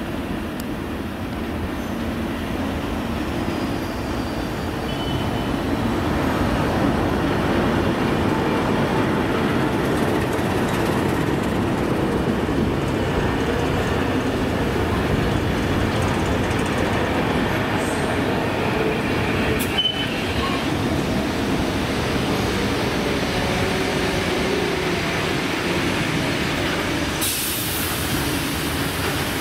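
A heritage passenger train rolling slowly past, its carriage wheels rumbling steadily over the track. A short hiss of steam from the steam locomotive comes near the end.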